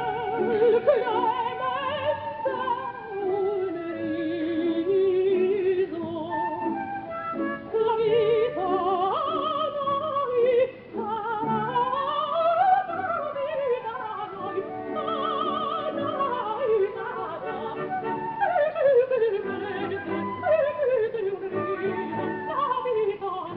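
Coloratura soprano singing an opera aria with a wide vibrato. About halfway through, her line sweeps up and back down, and near the end it falls in a series of quick descending runs.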